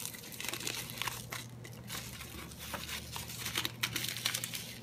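A dry sheet of toasted nori seaweed crinkling and crackling in irregular little snaps as hands fold and press it around a rice filling.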